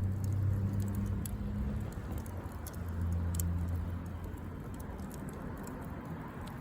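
Wood campfire crackling, with scattered sharp pops over a low steady hum.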